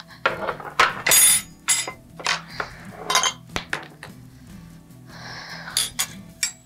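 Kitchen things clattering and clinking as a wooden cutting board and knife are set down and handled on a counter. There are several sharp knocks in the first few seconds and a short rustle about five seconds in, over soft background music.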